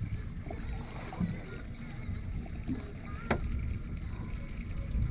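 Low, uneven wash of water and wind around a small drifting fishing boat. A single sharp click comes about three seconds in.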